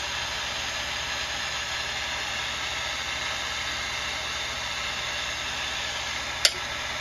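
Steady hiss over a low, even, engine-like hum, with one sharp click about six and a half seconds in.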